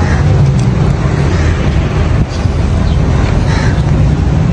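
A loud, steady low engine drone with street noise around it.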